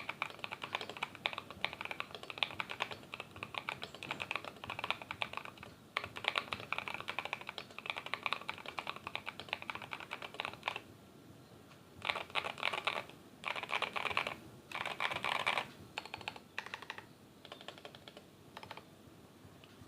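Mechanical keyboard typing on stock, unlubed WS Morandi switches in an aluminium Idobao ID80 with dye-sub Cherry-profile keycaps. It starts with fast continuous typing for about ten seconds, then a pause and three short quick runs of keystrokes, and ends with scattered, softer key presses.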